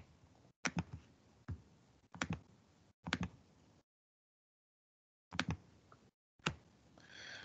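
Faint, scattered clicks and taps on a computer keyboard and mouse, some single and some in quick pairs, with dead silence between them.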